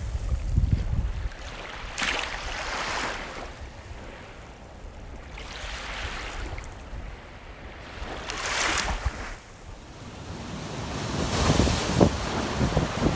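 Rushing outdoor ambience that swells and fades roughly every three seconds, each swell hissy on top with a low rumble beneath.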